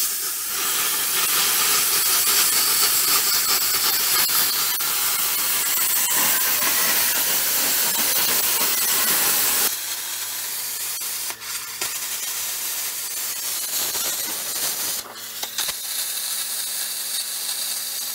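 Hand-held plasma cutter hissing steadily as it cuts through a steel mixing bowl. About ten seconds in the hiss changes and a low steady hum comes in underneath, with a few short breaks in the cut.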